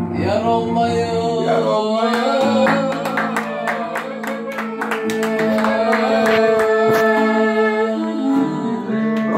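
Live Turkish folk music: clarinet and singing over an electric guitar. From about two seconds in, hand claps and frame-drum beats keep a steady rhythm.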